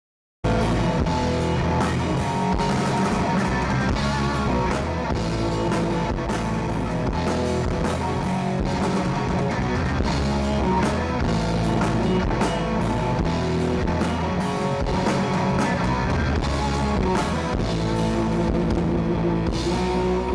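Live rock band playing: electric guitar, bass guitar and drum kit, starting suddenly about half a second in and running on at a steady level.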